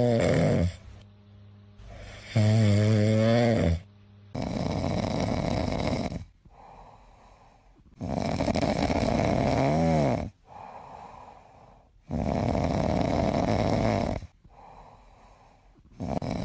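A sleeping dog snoring. It opens with two pitched, groan-like snores, then settles into loud snores about every four seconds, with quieter breaths in between.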